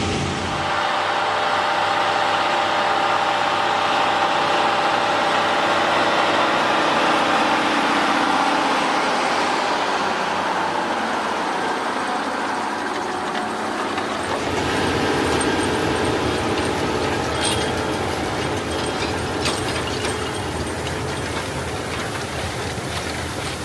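Large diesel farm machinery running at work: a steady engine drone with a rougher, noisier low rumble joining about two-thirds of the way through.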